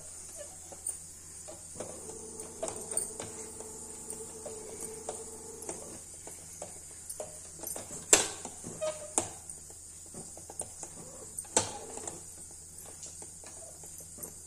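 Wooden spatula scraping and knocking against a steel pan while stirring a thick rice-flour and jaggery dough, a run of small clicks with a few sharper knocks around the middle.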